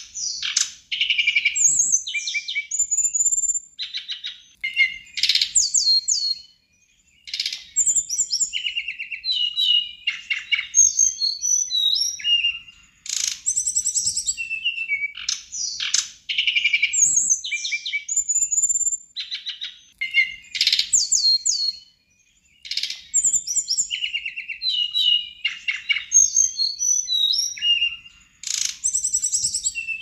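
Brown-chested jungle flycatcher singing vigorously: long phrases of rapid trills, chattering notes and high falling whistles, broken by short pauses every several seconds.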